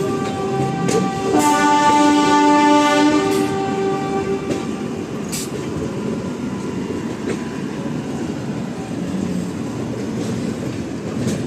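Two train horns sounding together at different pitches: one is already blowing and a second, lower one joins about a second in, and both stop by about four and a half seconds in. After that, the steady rumble and clatter of a train running on the rails.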